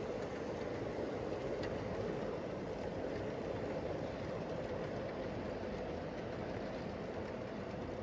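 Dubbed-in freight train sound effect: a steady rumble of railcars rolling past, slowly fading.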